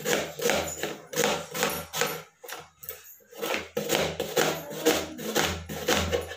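Knife chopping an onion on a cutting board: repeated sharp knocks of the blade on the board, about two to three a second, with a pause of about a second midway.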